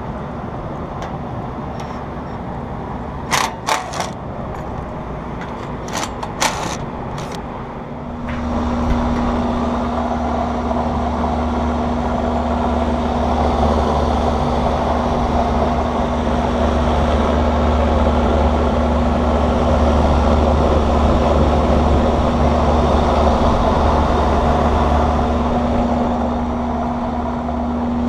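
Rooftop air-conditioning unit running with a steady low hum, broken by a few sharp clicks and knocks from its service panel being opened. About eight seconds in, the hum gets louder and a steady mid-pitched tone joins it.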